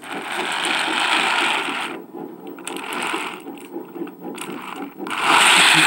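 Small geared motor running with a fast, even rattle. Loud bursts of hiss break in over it several times, the longest in the first two seconds and near the end.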